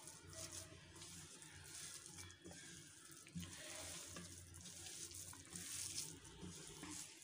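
Faint soft squishing and scraping of a bare hand kneading a moist mash of shredded fish and grated coconut in a nonstick pan, with a few light clicks.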